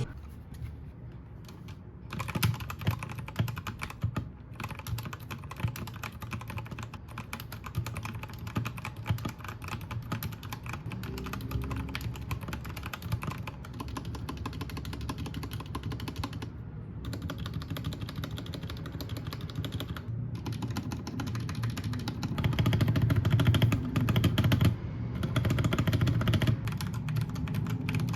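Typing on a Royal Kludge RK68 65% mechanical keyboard with brown switches: a fast, steady run of key clacks with a few brief pauses, louder in the last several seconds.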